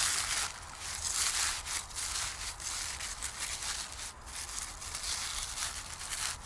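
Dry leaves and twigs crunching and rustling on the forest floor, in an uneven rustle that swells and dips.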